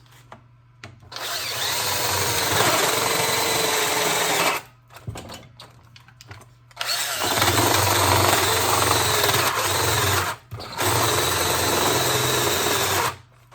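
DeWalt cordless drill boring a large 1-inch hole through two stacked 2x6s, run under heavy load in three long bursts with short pauses between. The battery is running low, enough to call for a fresh one.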